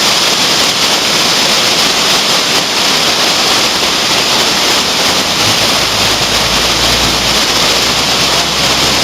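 Steady, loud rush of torrential typhoon rain pouring down. A low rumble joins about five and a half seconds in.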